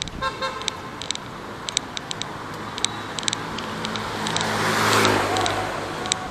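A short vehicle horn toot, then a motorcycle engine passing close by in the street, growing louder to a peak about five seconds in and fading away.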